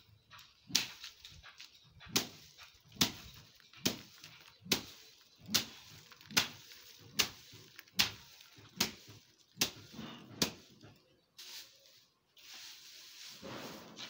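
A long wooden stick beating dried bean plants on sacking to thresh the beans from their pods: a regular thwack a little more than once a second, about a dozen strikes, stopping about three-quarters of the way through. A rustling follows near the end.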